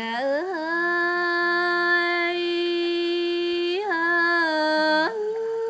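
A woman singing a Tày lượn cọi folk song unaccompanied, holding one long drawn-out note, wavering briefly near four seconds in, then stepping up to a higher held note just after five seconds.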